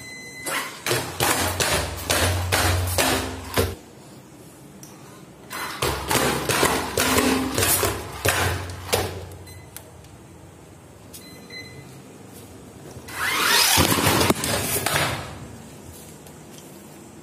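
WLtoys 12402-A RC truck, with its 550 motor, driving down tiled stairs. Its wheels and chassis knock on the steps in two runs of quick thuds, with the motor's low drone under them. A longer rushing noise follows near the end.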